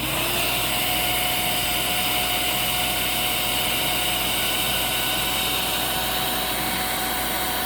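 Hoover WindTunnel Plus canister vacuum motor switching on and spinning up in the first moment, then running steadily with a whine for an airflow reading at the machine's body.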